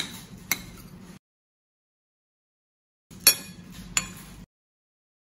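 Metal spoon clinking and scraping against a ceramic plate as the last grains of food are scooped up: a couple of sharp clinks, a stretch of dead silence, then a couple more clinks.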